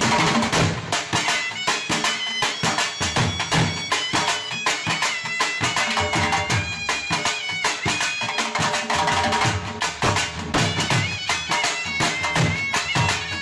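Background music: a high, reedy wind instrument plays a melody in long held notes that step up and down, over fast, busy drumming.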